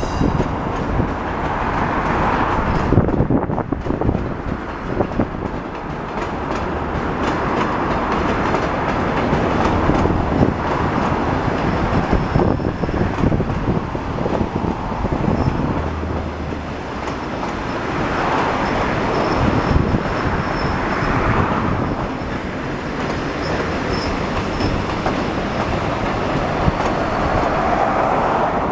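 Passenger train rolling past, steel wheels clicking over rail joints under a steady rush of running noise that swells and fades every several seconds as the coaches go by.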